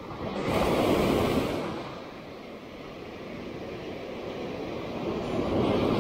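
Sea waves breaking on the beach: one surge swells and fades about a second in, and another builds near the end.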